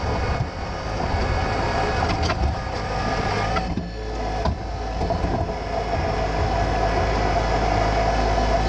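Three-cylinder diesel engine of a John Deere 2025R compact tractor running steadily under load while it pulls a rock rake, with a few short knocks from the machine over the ground.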